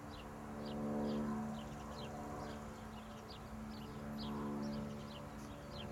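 An electric freight locomotive drawing closer, heard as a steady low hum that swells twice. Small birds chirp repeatedly in short, falling notes over it.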